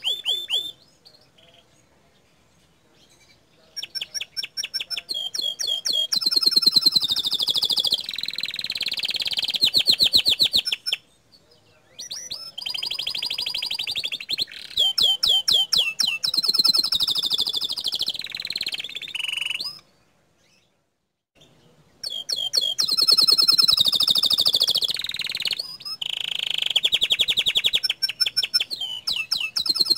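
Domestic canary singing long, loud phrases of rapid trills and high repeated notes. The song breaks off for short pauses three times: a few seconds just after the start, briefly around the middle, and for about two seconds about two-thirds of the way through.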